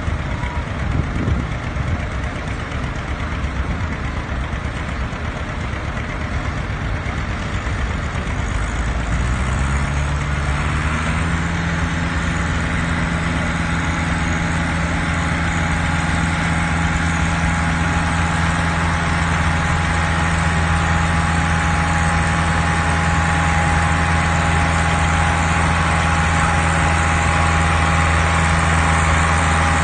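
John Deere 2510 tractor's four-cylinder engine rumbling unevenly, then revving up about a third of the way in and running at steady high revs under load as it pulls a weight-transfer sled, growing slightly louder toward the end.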